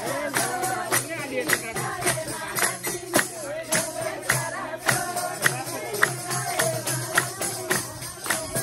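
A group of women singing together, with steady rhythmic hand-clapping keeping the beat.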